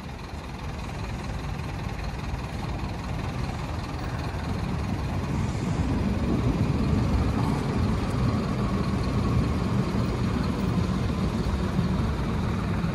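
Low rumble of a motor vehicle's engine, growing steadily louder over the first six seconds and then holding.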